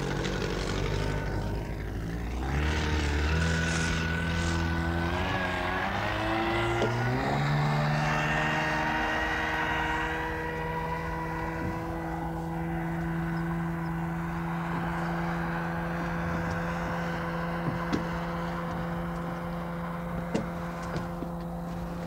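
Small floatplane's propeller engine rising in pitch over the first several seconds as it powers up for its takeoff run on the water, then holding a steady drone.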